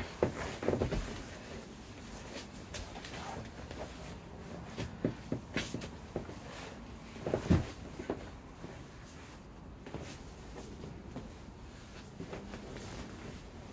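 Two grapplers' bodies, hands and feet knocking and sliding on foam mats during sparring: scattered soft thumps and scuffs, the loudest about seven and a half seconds in.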